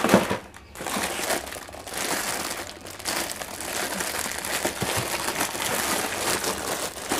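Clear plastic bag crinkling as hands turn and squeeze the pair of boots packed inside it. There is a sharper crackle at the start, then continuous, uneven crinkling.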